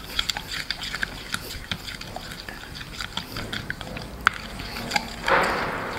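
Plastic spoon stirring a thick yogurt and spice marinade in a glass bowl: wet squelching with frequent small clicks of the spoon against the glass. A louder, brief rush of noise comes about five seconds in.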